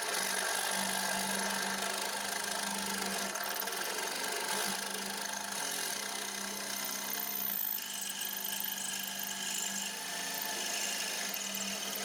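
Electric drill running steadily under load with a constant motor hum, its bit boring through weld metal in a car door hinge's pin hole.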